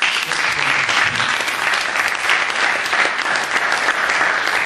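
Audience applauding: many hands clapping at once, starting all together and holding steady.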